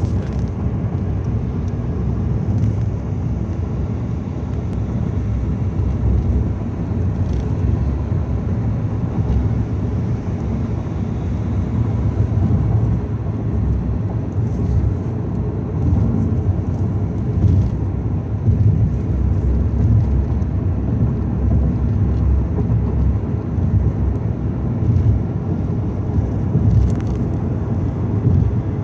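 Steady low rumble of road, tyre and wind noise inside a car cabin driving at highway speed.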